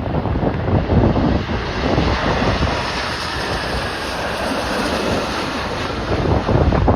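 Gusty wind buffeting the microphone, with the steady rush of a jet airliner's engines on approach, smoothest and strongest in the middle.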